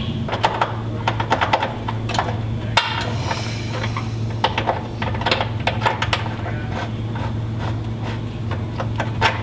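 Irregular metallic clicks and clinks of a bolt being worked through steel engine-mount brackets to check their alignment, over a steady low hum.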